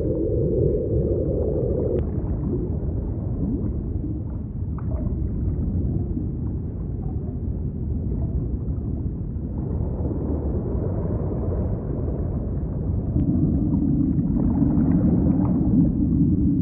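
Deep underwater ocean rumble with long, low held drones: one ends about two seconds in, and a lower one comes in near the end.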